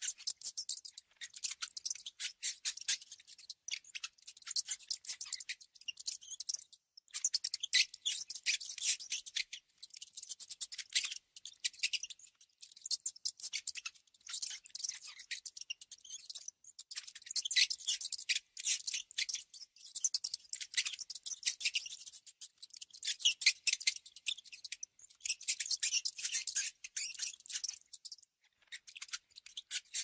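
Mouse sound effect: bursts of rapid, high-pitched clicking, each lasting one to three seconds, with short pauses between.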